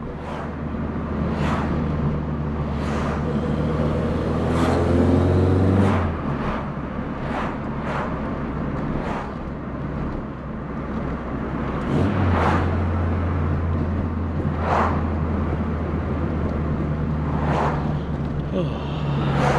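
VW Polo coupe's freshly rebuilt engine running under way, heard from inside the car: it pulls up in pitch through a gear, drops off at a change about six seconds in, and pulls steadily again from about twelve seconds, with short bursts of noise coming and going throughout.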